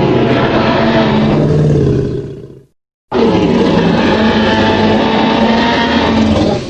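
Two Jurassic Park/World Tyrannosaurus rex roar sound effects, back to back, each deep and long and fading out at its end: the first lasts about two and a half seconds, and after a short silence a second, longer roar follows.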